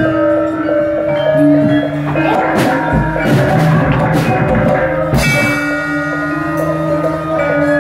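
Javanese gamelan playing: ringing bronze metallophone and gong tones, with a flurry of loud drum and percussion strikes from about two to five seconds in.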